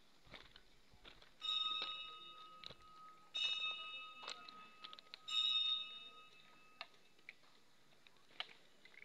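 A metal temple bell struck three times, about two seconds apart, each strike ringing on and fading away, with the ring carrying on between strikes.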